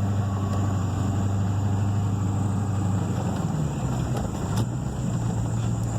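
Pickup truck engine running at low speed, a steady low hum heard from inside the cab while driving over a field; its pitch shifts slightly a little past the middle.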